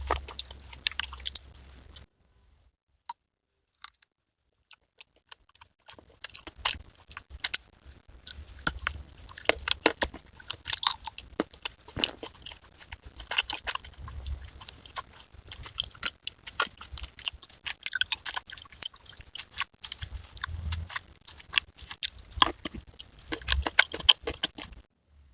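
Dry edible clay being bitten and chewed, with crisp, crackling crunches. The crunching stops for a couple of seconds a few seconds in, then resumes almost without a break until it stops suddenly near the end.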